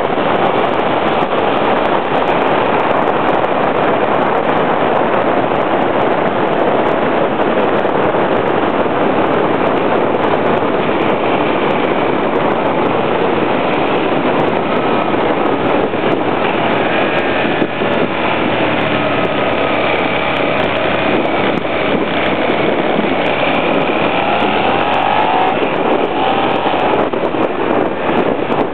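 Loud wind rushing over the microphone of a moving motorcycle, with the bike's engine running underneath. In the second half, faint engine tones rise and fall in pitch.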